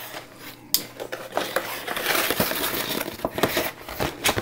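Paper USPS Priority Mail flat-rate envelope being cut and torn open: a run of crinkling, tearing and rustling with many sharp crackles, loudest near the end.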